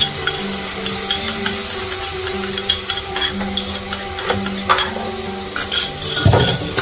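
Spiced yogurt-and-onion masala sizzling as it fries in a pan, with a spoon stirring and scraping through it. A louder clunk comes a little over six seconds in.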